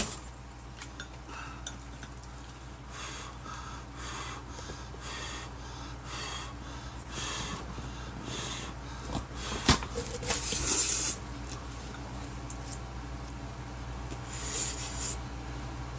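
Noodle slurping: a run of short slurps of jjapaghetti noodles about once a second, then a longer, louder slurp about ten seconds in and another near the end. A single sharp click comes just before the long slurp.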